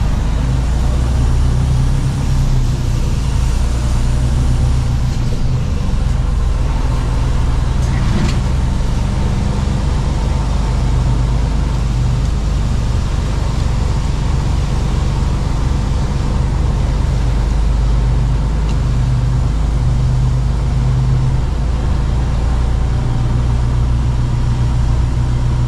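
Mercedes-Benz Actros truck's diesel engine running steadily while driving, heard from inside the cab as a steady low drone. There is a brief click about eight seconds in.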